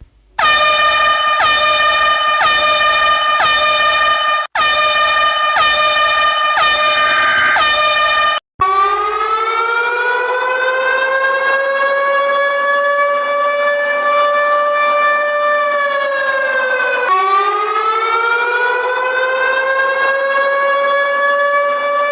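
Emergency alert alarm tones: a horn-like tone that dips briefly about once a second, then a siren wail that rises, holds, sinks and rises again.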